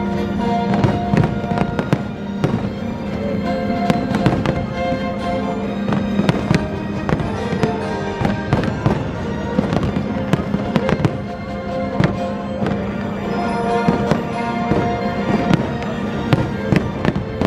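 Fireworks show: many bangs and crackles of bursting shells in quick, irregular succession, with music playing steadily underneath.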